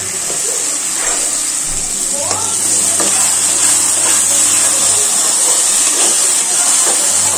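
Tomato purée sizzling in hot oil as it is poured onto browned onions in an aluminium pressure cooker and stirred in with a spoon; the sizzle swells over the first few seconds, then holds steady.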